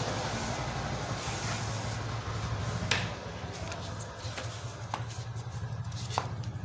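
Broom sweeping across a tiled floor, a scratchy hiss that fades after about two seconds, then a few sharp knocks, over a steady low hum.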